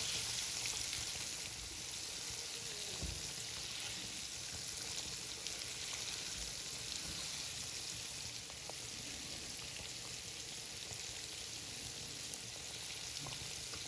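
Flour-coated chicken pieces deep-frying in hot oil: a steady sizzle, with a few faint clicks.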